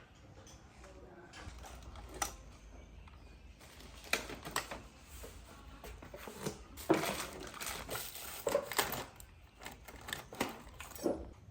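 Irregular light clicks and knocks of small objects being handled, like tools and parts set down and picked up on a work surface, with a low hum underneath.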